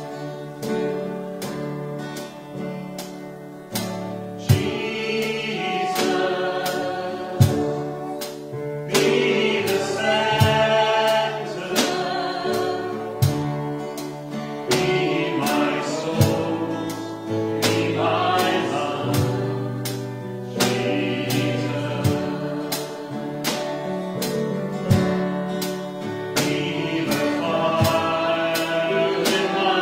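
Congregation singing a worship song with a small band of violin and acoustic guitar, and a light percussion beat struck about twice a second.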